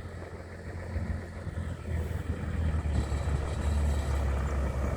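Four-wheel-drive vehicle's engine running, a steady low rumble that grows slightly louder.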